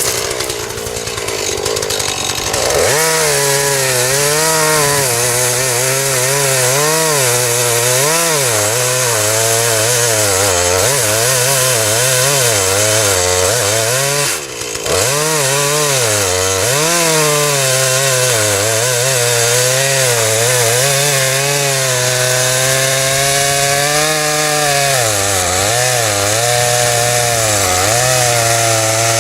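Chainsaw cutting into a dead box elder trunk. It revs up about two seconds in, then its engine note sags and recovers again and again as the chain bites under load, with a brief let-off about halfway through.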